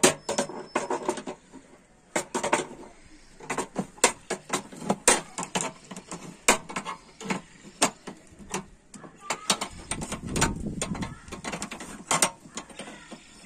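Pliers gripping and turning a screw on the steel burner bracket of a gas stove, a series of sharp, irregular metal clicks and scrapes as it is tightened. A duller low rumble of handling comes about ten seconds in.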